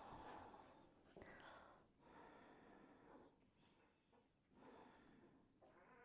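Near silence with a few faint, short breaths.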